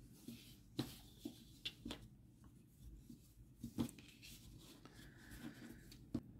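Hands handling a stuffed crocheted yarn toy on a tabletop: faint rubbing of yarn against the table with several short soft taps, the loudest about four seconds in.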